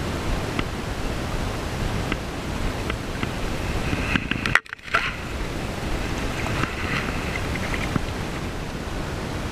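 Steady rush of shallow river water flowing around the wading angler's legs, with a few faint clicks and taps. The sound cuts out for a split second about halfway through.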